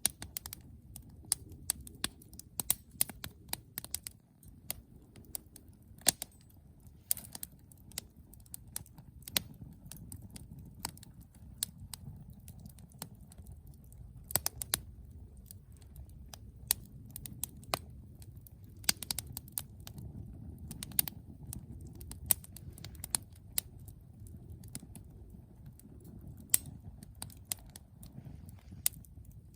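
Wood fire burning in a Firebox Freestyle stove set up as a Firepit 8: irregular sharp crackles and pops over a low, steady rumble.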